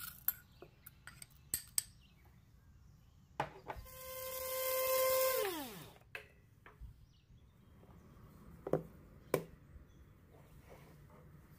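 A small electric kitchen-appliance motor runs for about two seconds at a steady pitch, then winds down with a falling pitch as it is switched off. Light clicks and knocks of kitchen utensils come before and after it.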